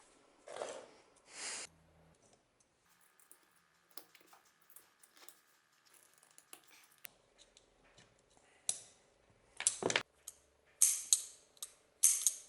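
Handled metal parts of an old powder-actuated nail gun: two short scraping swishes near the start, then scattered clicks, and several sharp metallic clacks in the last few seconds.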